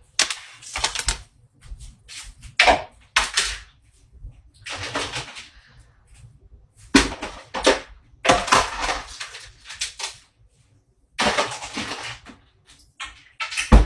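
Irregular clatter and rustling close to the microphone: sharp clicks and noisy scraping bursts in clusters, with short pauses between.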